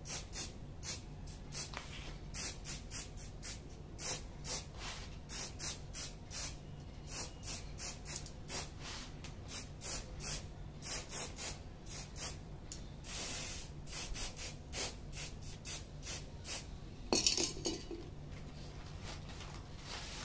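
Aerosol spray-paint can hissing in many short, quick bursts, a few a second, with a longer spray about two-thirds through and a louder burst near the end. The bursts lay on a light mist coat of silver paint on bare plastic, standing in for primer.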